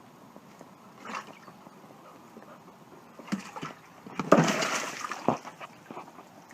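Irregular bursts of water splashing and sloshing, loudest from about four to five seconds in, with a sharp knock shortly after.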